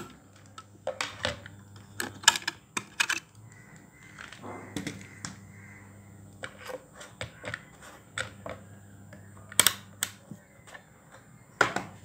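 Scattered sharp clicks and taps of hard plastic as a toy car's remote control transmitter is handled on a tabletop, with two louder knocks near the end.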